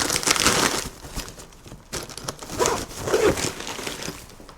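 Plastic packaging rustling and crinkling as food is handled and packed, in two bursts with a quieter gap between them, fading near the end.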